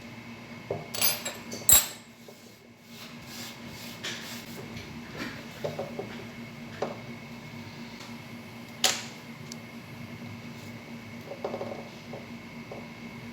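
Scattered sharp clicks and lighter taps of small hard objects being handled, the loudest about two seconds in and again near nine seconds, over a faint steady hum.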